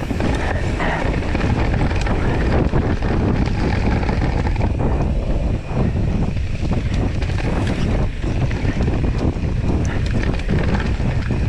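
Wind buffeting the microphone of a camera riding on a mountain bike at speed downhill, over the steady rumble of knobby tyres on a dirt trail, with scattered knocks and rattles from the bike.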